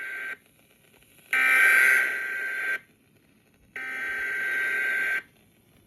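Emergency Alert System SAME header data bursts heard over FM radio: the end of one burst, then two more bursts of about a second and a half each, a second apart with near silence between. This digital header opens a Required Monthly Test alert and leads into the two-tone attention signal.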